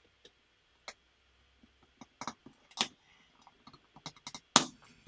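LEGO plastic pieces clicking and snapping as a wheel and tyre are fitted onto a small LEGO car, mounted on a half Technic pin. Irregular sharp clicks start about two seconds in, the loudest near the end.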